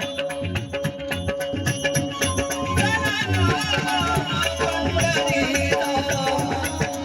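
Marathi devotional abhang music in an instrumental passage: fast percussion with a jingling rattle over a steady held drone, and a wavering melodic line that comes in about three seconds in.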